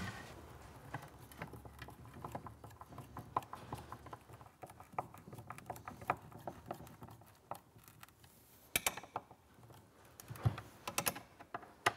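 Small irregular clicks and scrapes of a hand screwdriver turning screws through a steel drawer runner into the cabinet side, with a few sharper metallic clicks near the end.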